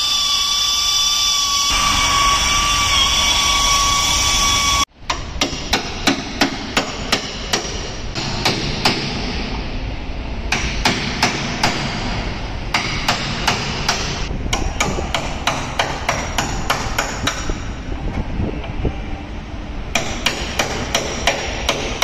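A steady high whine of an air tool for about five seconds, cutting off abruptly; then a hammer striking the steel sill of a Mercedes A200 body shell, about two to three blows a second in runs with short pauses.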